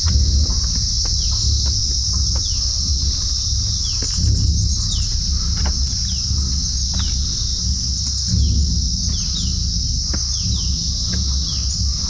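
Insects give a steady, high, even drone, while a bird's short falling chirps repeat about once a second over a low rumble.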